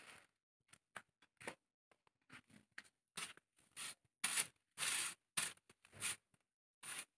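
Soft grass broom sweeping a bare concrete floor: a quick run of brushing strokes, louder from about three seconds in.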